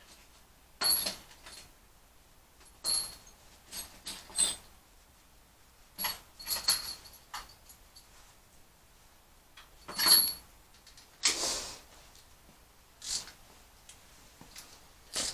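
Irregular sharp metallic clinks and rattles of small door hardware, screws and hand tools being handled, with a longer rattle about eleven seconds in.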